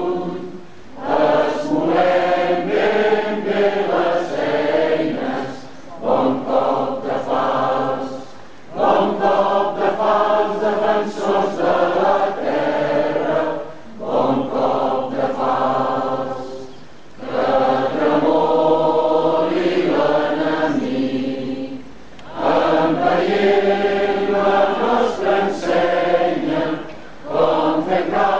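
A crowd singing together in phrases of a few seconds each, with short breaks for breath between them.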